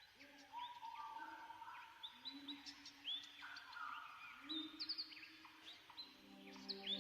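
Soft ambient music fading in: long held notes that each slide up into pitch, layered low and mid, with high chirping bird-like notes over them.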